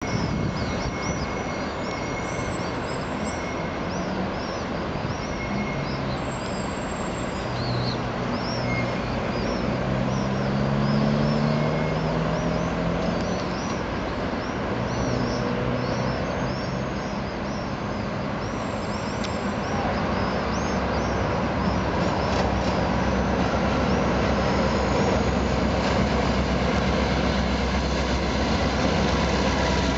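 Diesel locomotive engine approaching at low speed, a steady low drone that rises in pitch about ten seconds in and grows heavier and deeper over the last third. High chirping of small birds runs over it for the first two-thirds.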